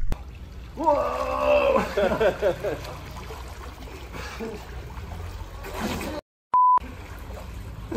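Pool water sloshing and trickling around a swimmer, with voices calling out about a second in. Near the end, after a moment of dead silence, a short, loud single-pitch electronic beep.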